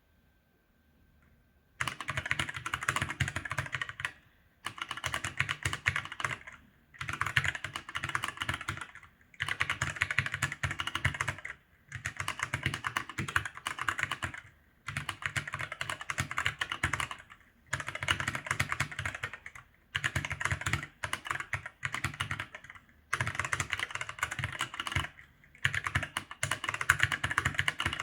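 ASUS ROG Falchion NX mechanical keyboard with ROG NX Red linear switches being typed on fast. The typing comes in bursts of a couple of seconds each, with short pauses between, and starts about two seconds in.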